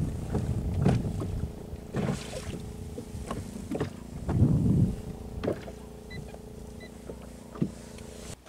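Small fishing boat at sea: a steady low hum with irregular knocks and thumps, the loudest a low thump about four and a half seconds in.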